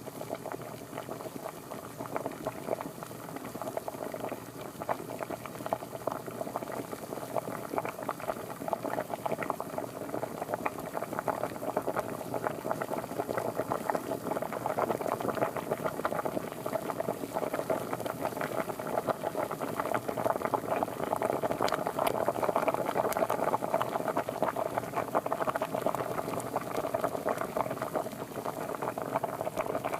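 Water boiling at a rolling boil: a dense, continuous bubbling and popping that builds slightly louder toward the latter half.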